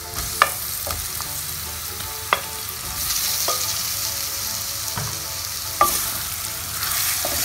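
Pieces of marinated sea chicken fish going into hot oil with tempered spices and sizzling, the sizzle growing louder about three seconds in. A few sharp knocks come against the pot, and a wooden spoon stirs the pieces near the end.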